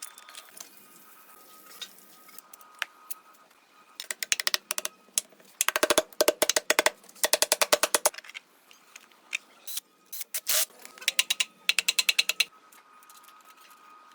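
Bursts of rapid, evenly spaced mechanical clicking: a dense run of about two seconds starting around six seconds in, and another run of about two seconds near the end.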